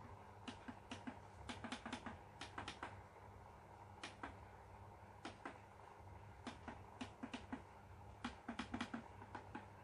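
Plastic push buttons on a 14-inch CRT television's front panel clicking under a finger, pressed in quick clusters of several clicks a second, on and off throughout. The channel buttons no longer work.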